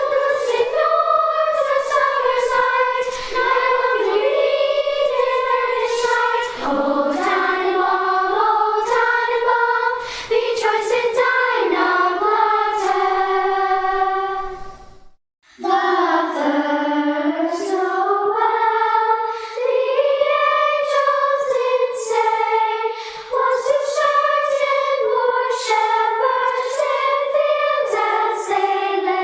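Youth choir singing, the voices holding and moving between sustained notes. The singing breaks off briefly about halfway through, then starts again.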